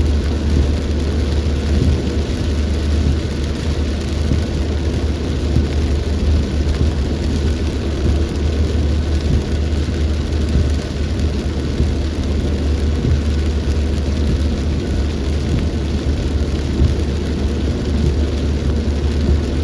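Rainstorm: steady rain and wind with a constant deep rumble.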